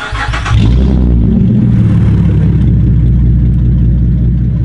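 Holden Commodore SV6's V6 engine starting up, catching within about half a second and then running loud and steady. It has a straight-pipe exhaust: no catalytic converters, rear mufflers removed, only a resonator left.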